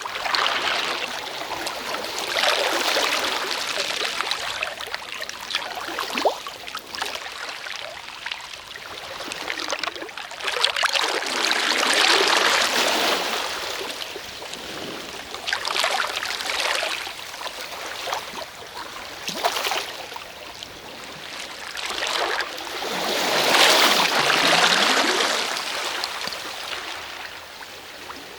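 Sea waves washing onto a shore: the hiss of surf swells and fades every few seconds, with the loudest waves about twelve seconds in and near the end.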